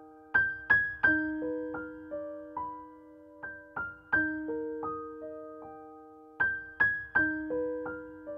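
Background piano music: a slow, gentle melody of single struck notes that ring and fade, the same phrase repeating about every three seconds.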